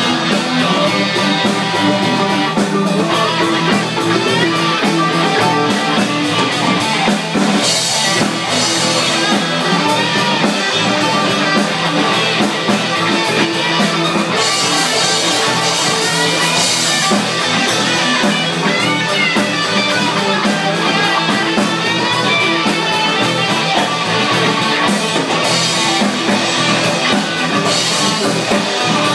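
A rock band playing live at a steady loud level: two electric guitars and an electric bass through small amps over a Yamaha drum kit.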